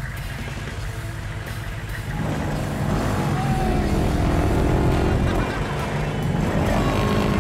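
Car audio van's four 15-inch subwoofers playing a very deep bass rumble, getting louder and fuller about two seconds in.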